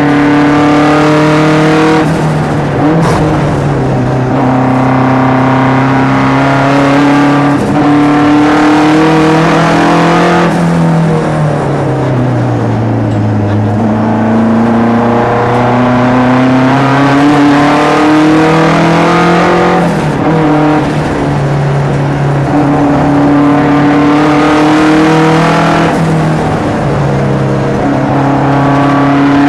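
Onboard sound of a classic SAAB 900 race car's turbocharged four-cylinder engine under racing load, heard from inside the cabin. The revs climb and drop again and again with gear changes, falling to their lowest about halfway through before pulling back up.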